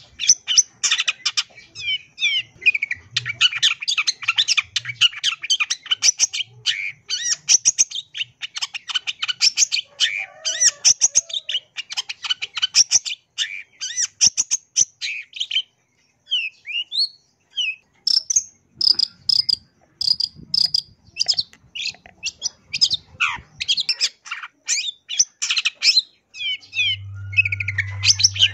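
Long-tailed shrike singing a fast, rambling song of varied chattering and sliding notes, full of mimicry of other birds. The song nearly stops for about two seconds halfway through, then resumes.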